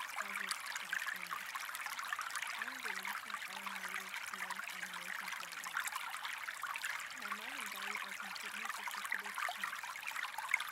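Steady running water, like a trickling stream, with a faint murmured voice underneath in places.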